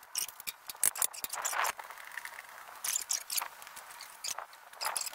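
Greenlee pipe bender being released: a string of sharp metal clicks, knocks and scrapes as the bent steel pipe is freed from the bending shoe.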